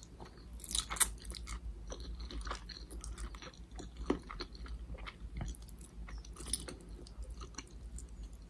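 Close-miked chewing and crunching of vegetables and noodles, in irregular crunches with the loudest about a second in, over a steady low hum.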